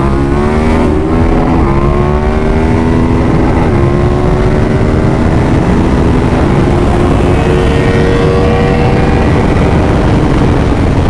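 KTM 1290 Super Duke R's V-twin engine under hard acceleration, climbing in pitch through the gears with a drop at each upshift, over loud wind noise.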